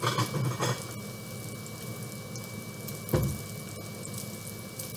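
Bacon and shrimp sizzling steadily in frying pans, with a thin steady whine from the kitchen fan. A rustling clatter comes right at the start, and a single dull knock about three seconds in.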